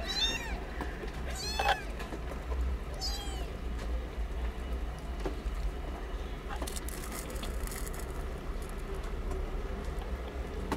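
Newborn kittens mewing: three short, thin, high-pitched cries in the first few seconds, the second the loudest, then a brief rustle later on.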